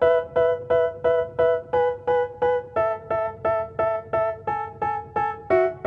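Background music: a piano-like keyboard striking the same chord about three times a second, the chord shifting lower twice.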